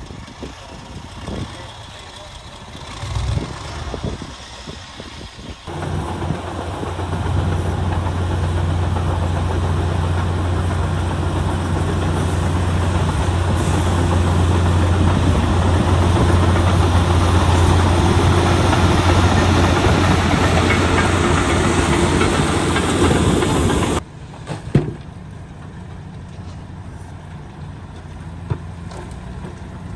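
Heavy diesel engine of earthmoving machinery working. It runs quietly at first, then from about six seconds in it is loud and steady under load. It cuts off suddenly near the end, leaving a quieter engine running.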